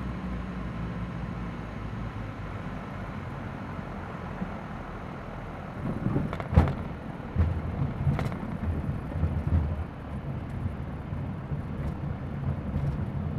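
Piper Seminole's twin piston engines droning steadily in the cabin. The plane touches down on the runway, with a sharp thump about six and a half seconds in and another at about eight seconds, then a rougher rumble of the landing roll.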